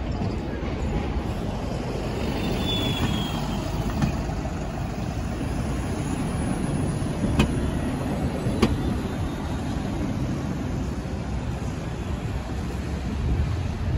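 City street traffic dominated by a double-decker bus running close by, a steady low rumble. Two sharp clicks, about a second apart, come midway.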